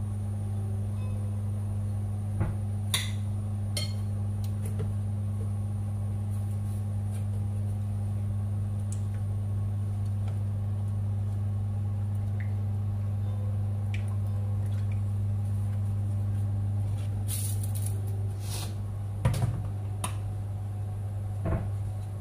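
A steady low electrical hum, with scattered light clinks and knocks of spoons and dishes.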